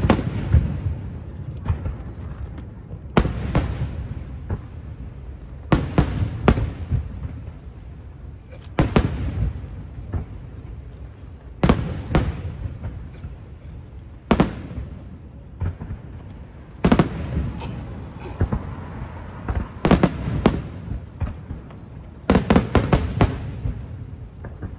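Aerial firework shells bursting, a sharp bang every two and a half to three seconds, each trailing off in a low rumbling echo. Some bursts come in pairs, and a quick cluster of several bangs comes near the end.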